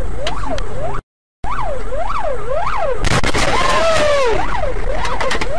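A siren wailing in fast up-and-down sweeps, about two a second, cut off briefly by a short silence about a second in. In the second half a burst of rushing noise and clattering clicks rises over the siren.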